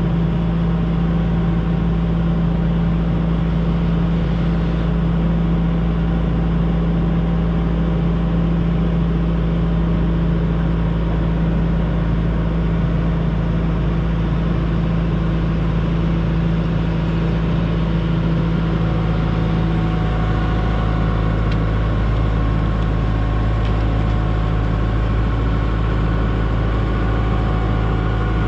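Diesel engine of a 120-size excavator running steadily; about two-thirds of the way through its note drops to a lower pitch.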